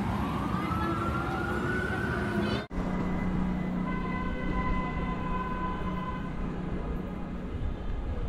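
Emergency vehicle siren wailing over street traffic noise. Its pitch bottoms out and then climbs slowly for a couple of seconds before cutting off abruptly under three seconds in. After that, steady held tones continue over the traffic.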